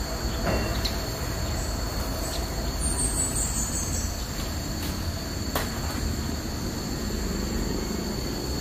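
Forest ambience: insects keep up a steady high drone, and a small bird gives a few short chirps and a quick descending run of high notes about three seconds in, over a low rumble.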